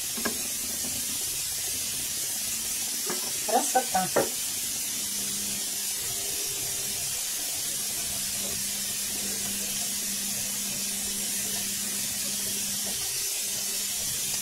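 Shredded carrots sizzling in oil in a frying pan, cooking down on the heat: a steady, even hiss.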